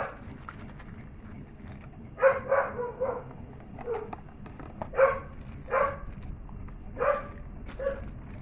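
A dog barking repeatedly: a quick run of four barks about two seconds in, then single barks roughly once a second.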